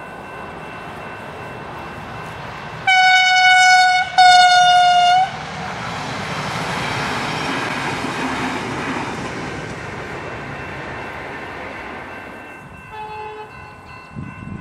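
A train gives two long single-note blasts of about a second each, then runs past, its noise swelling and fading away.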